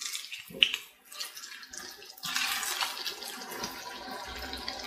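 Potato cutlets sizzling in hot oil in a frying pan, with a few sharp clicks of a steel spoon against the pan as they are turned. The sizzle grows louder and steady about two seconds in.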